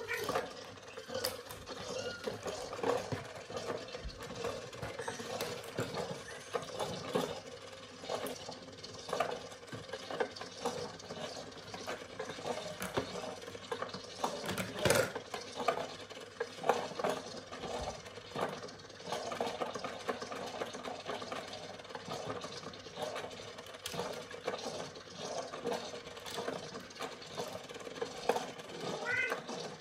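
Small electric motor of a battery-powered felt-covered cat toy whirring steadily, with plastic balls clattering around the tracks of a tower toy as kittens bat at them. A kitten meows near the end.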